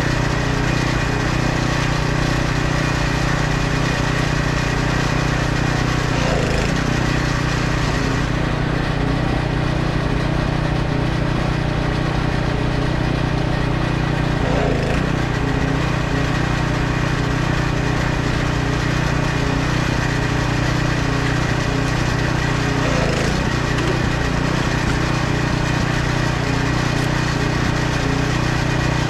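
An engine running steadily at constant speed, a continuous low hum with no change in pitch.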